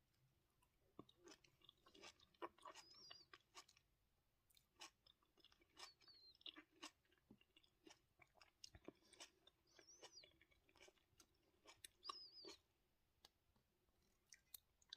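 Faint chewing: wet mouth clicks and crunching strokes in clusters, with a few brief squeaky sounds.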